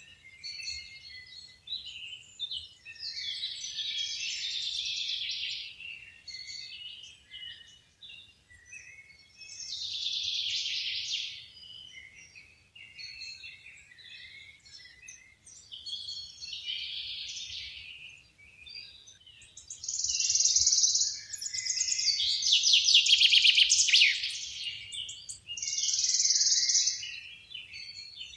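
Songbirds singing: a series of high, rapid song phrases, each about two seconds long and coming every few seconds, with scattered short chirps between them. The phrases grow louder in the last third.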